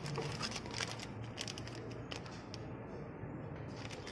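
Plastic packaging crinkling and rustling as it is handled, a quick run of crackles that is busiest in the first two and a half seconds and thins out after.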